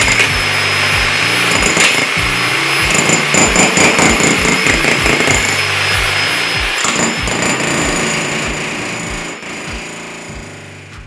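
Electric jackhammer chiseling into a concrete floor slab, rapid hammering as the bit breaks the concrete into rubble. Background music plays with it, and the sound fades out over the last few seconds.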